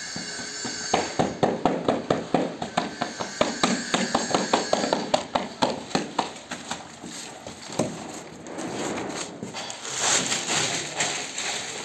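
Hand float tapping glass mosaic tile sheets to bed them into the adhesive: a fast run of sharp taps, several a second, for about five seconds, then a rougher noisy stretch near the end.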